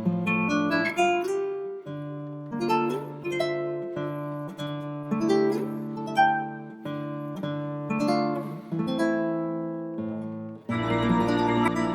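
Background music led by plucked acoustic guitar, with chords changing every second or so; the texture grows fuller near the end.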